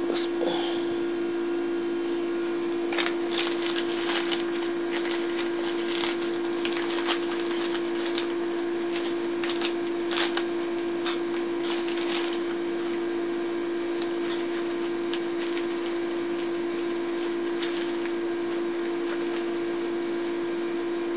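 A steady electrical hum, with plastic bag crinkling and a few light clicks in the middle stretch as an ingredient is scooped out of a zip-top bag; the crinkling thins out after that.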